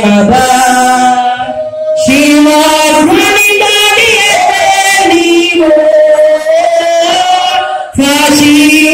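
A woman singing a worship song into a microphone: long held, sliding notes in sung phrases, with brief pauses about two seconds in and near the end.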